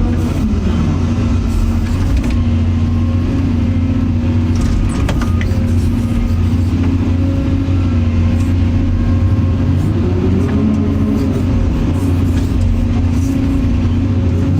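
Excavator's diesel engine running steadily under load while the hydraulics work, heard from the operator's seat. Its note dips and rises again about ten seconds in, with a few light clicks about a third of the way through.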